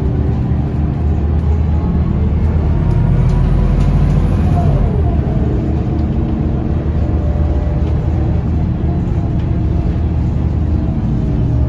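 Scania L94UB bus's rear diesel engine and ZF automatic driveline running steadily under way, heard from inside the passenger cabin. A faint whine slides down in pitch about halfway through.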